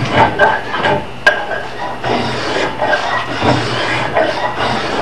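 Spokeshave shaving a wooden axe handle clamped in a vise: repeated scraping push strokes as the handle is thinned down, with a sharp click a little over a second in.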